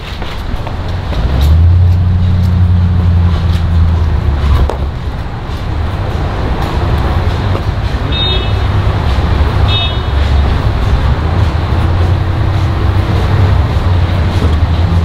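Steady low rumble of road traffic, with a louder engine hum for a couple of seconds early in the stretch. Two short high beeps come about 8 and 10 seconds in.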